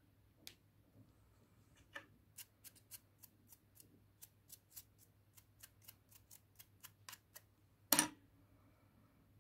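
Light plastic clicks, about three a second, as a small cleaning brush is worked against a switched-off epilator's shaver head, then one louder click near the end.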